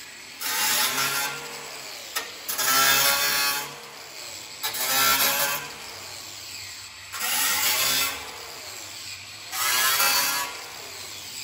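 Cordless angle grinder cutting off steel trim staples on a 1963 Ford Falcon's rusty rocker panel: five bursts of grinding about a second long each as the disc bites into the metal, with the grinder running more quietly in between.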